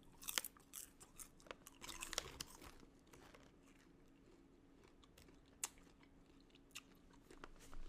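A person chewing popcorn, faint crunches coming thickest in the first couple of seconds, then only a few scattered ones.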